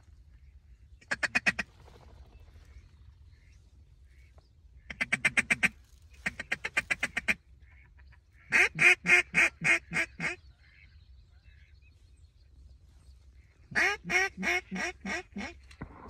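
Mallard duck call blown in five runs of rapid quacks, each of five to ten notes and several tapering off toward the end, calling to a big group of ducks flying over to work them toward the decoys.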